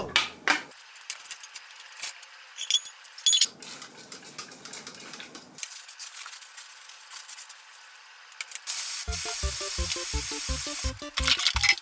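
Kitchen clatter of cans and dishes clinking at the sink, then a mixer tap running water into a pan in the sink for a few seconds near the end. Background music with a steady beat comes in at the same time.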